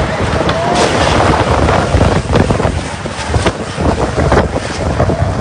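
Heavy rain pouring down in a loud, dense hiss with irregular splashes, with wind buffeting the microphone.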